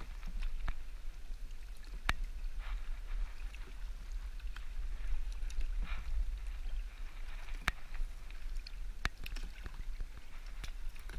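Open canoe being paddled in calm water: soft swishes and lapping of water at the hull, a few sharp knocks, and a steady low rumble underneath.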